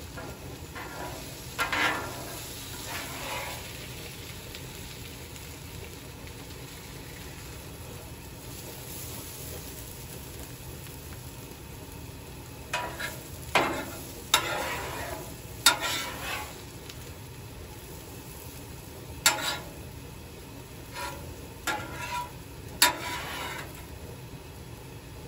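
Venison burgers sizzling steadily on a Blackstone flat-top griddle. Sharp clinks and scrapes of a metal utensil on the steel griddle come in clusters: about two seconds in, around the middle, and near the end.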